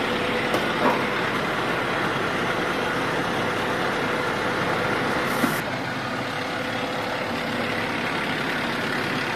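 Fire engine's diesel engine running steadily, with a light knock about a second in and another about five and a half seconds in.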